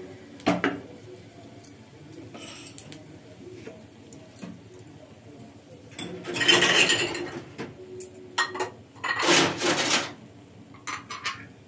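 Small steel tempering pan clinking and scraping against a gas-stove grate as it is shifted: a sharp clink near the start, then two longer bursts of scraping in the second half, with a few light ticks near the end.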